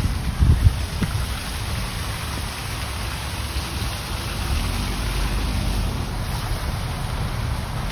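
Outdoor stone fountain splashing, its jets and tiers falling steadily into the basin as a constant hiss, with a few low bumps about half a second in.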